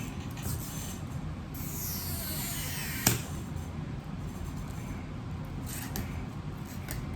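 Battery adhesive pull-tab under an iPhone 6 battery being stretched out: a high squeak that falls in pitch for about a second and a half, ending in a sharp click about three seconds in.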